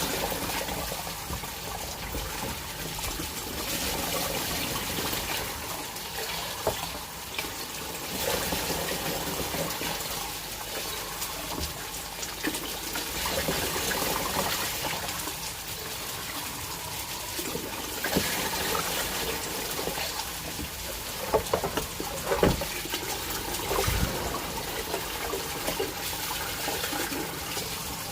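Water running steadily from a kitchen tap, filling a pot for the rice. A few sharp knocks, like pots or utensils, come about three quarters of the way through.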